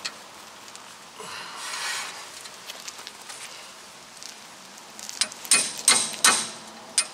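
A brief rustle of tool handling, then from about five seconds in a run of sharp, ringing hammer blows on a steel tool, two or three a second, working loose a seized brake rotor retaining screw.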